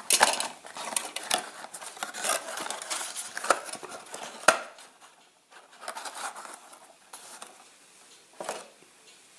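Cardboard model box being handled: its flaps opened and folded with rustling, scraping clicks, a sharp tap about four and a half seconds in, then fainter rustles.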